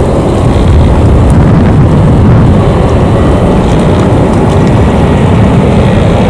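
Loud, steady low roar of an Airbus A320-214's CFM56 jet engines, mixed with wind on the microphone.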